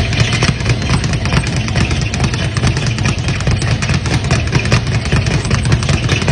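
A speed bag being punched rapidly, drumming against its wooden rebound platform in a fast, continuous rattle of hits.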